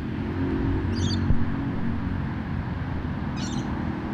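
A steady low drone with a sharp knock a little over a second in, and two short high squeaky chirps, one about a second in and one about three and a half seconds in.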